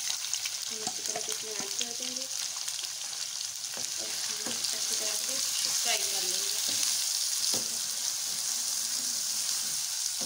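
Chopped onions sizzling in hot oil in a steel karahi, stirred with a wooden spatula that knocks and scrapes against the pan now and then.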